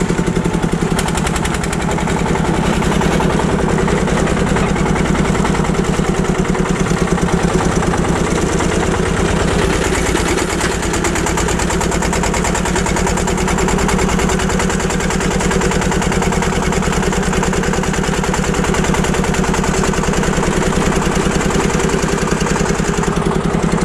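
Old tractor's engine running steadily under way, with an even beat of firing pulses.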